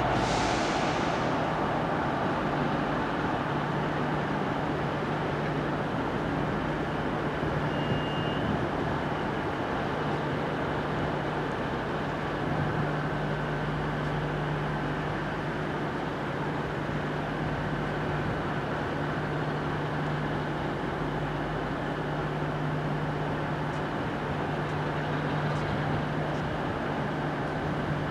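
Class 47 diesel locomotive's Sulzer twelve-cylinder engine running with a steady low drone as the locomotive moves slowly along the depot tracks.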